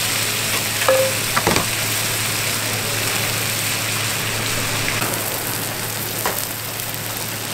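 Okonomiyaki sizzling on a hot flat-top teppan griddle as sauce is brushed over it, a steady frying hiss. A few light clicks come about a second in and again near the end.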